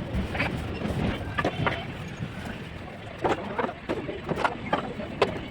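Plastering trowel scraping and knocking on wet cement plaster: a run of short, irregular scrapes and knocks over a low background rumble.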